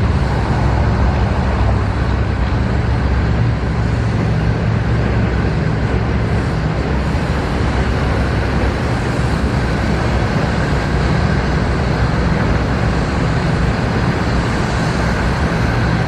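Steady rumble of engines and road traffic, with a low engine drone and a constant noisy wash over it.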